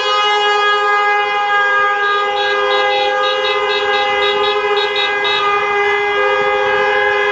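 Several car horns held down at once in celebration, overlapping in one continuous blare. From about two seconds in to past the middle, a rapid beeping of about three beeps a second runs over the held horns.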